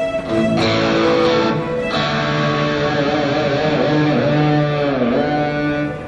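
Fender Stratocaster-style electric guitar playing a lead line through effects pedals: long sustained notes, some wavering with vibrato, and one note bent down in pitch and back up about five seconds in.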